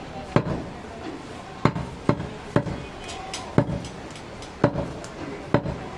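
A butcher's large knife chopping through meat into a wooden stump block: seven sharp chops at an uneven pace.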